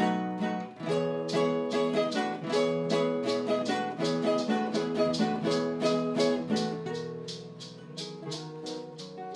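Intro music played on plucked strings, with a steady beat of strums, getting softer about seven seconds in.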